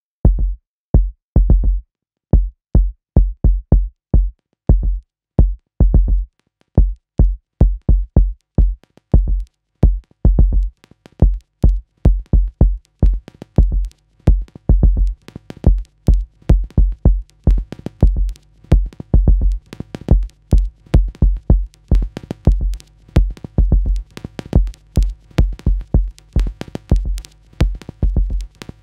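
Electronic background music built on a drum-machine beat of deep, short kick drums. A low held synth note comes in about halfway, and quick high ticks build up over the second half.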